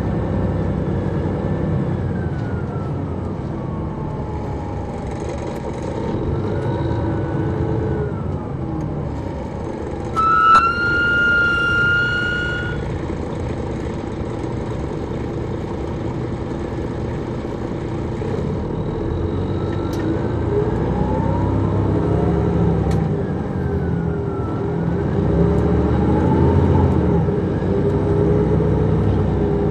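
On-board sound of an MCI D4000 coach's Detroit Diesel Series 60 engine and Allison B500 automatic transmission driving, the engine pitch rising and falling several times as the bus speeds up and slows. A short high tone sounds for about two seconds, about ten seconds in.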